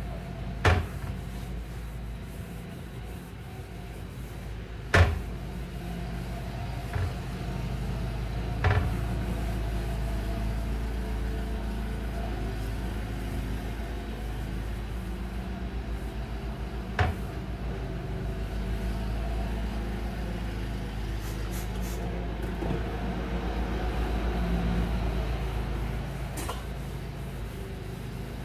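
Wooden kitchen cabinet doors knocking and clattering now and then as they are wiped down and one is opened: a handful of sharp knocks, the loudest about five seconds in, over a steady low hum.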